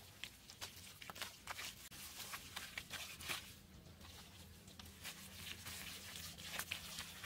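Faint, irregular soft knocks, scrapes and slaps of hands working on a mud-plastered wooden post and bamboo wall, over a steady low hum.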